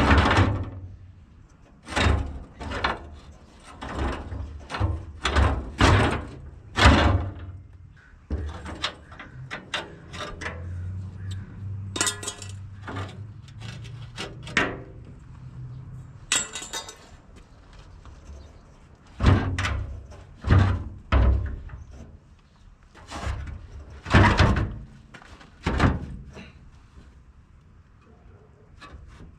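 Heavy, hollow metal clunks and bangs at irregular intervals as a 1978 Ford F-250's rear fuel tank, its bottom straps undone, is worked against the frame and a crossmember to try to free it. A low steady drone runs underneath for several seconds midway.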